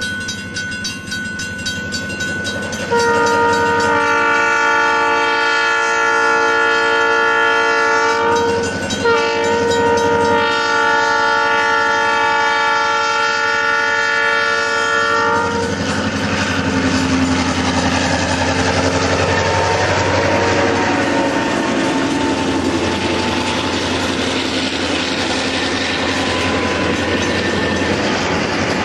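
EMD GP9 diesel locomotive's air horn sounding a steady chord of several notes for about twelve seconds, broken once briefly near the middle, as it approaches a road grade crossing. After the horn stops, the locomotive's diesel engine runs and its wheels roll over the rails.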